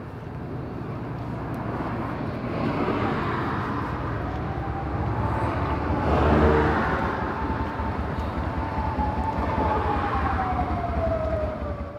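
Street traffic: vehicles passing, loudest about halfway through, with a whining tone that falls in pitch near the end.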